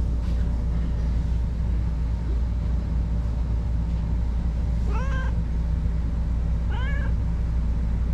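A stray cat meows twice, two short calls about two seconds apart that rise and fall in pitch, while being stroked on the head. A steady low rumble runs underneath.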